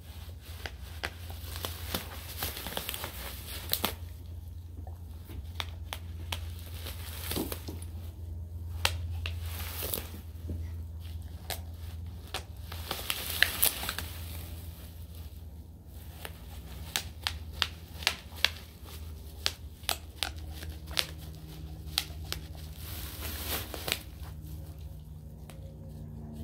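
German Shepherd popping bubble wrap with her mouth: sharp pops and clicks scattered throughout, with plastic crinkling and tearing as she pulls the sheets about, over a steady low hum.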